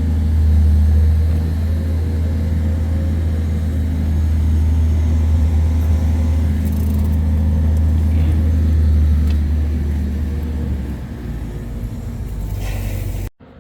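A large engine running with a steady low rumble. It eases off after about eleven seconds, and the sound cuts off abruptly just before the end.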